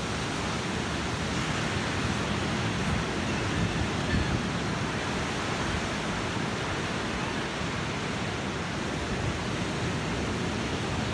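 Ocean surf breaking and washing in the shallows: a steady, even rush of noise.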